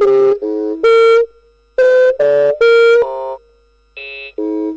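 A rapid sequence of about ten short, buzzy electronic tones, each a fraction of a second long and at a different pitch, separated by brief gaps, with a pause of about half a second near the middle.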